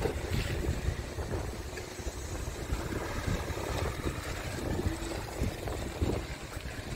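Wind buffeting the microphone: an irregular low rumble with no steady engine note.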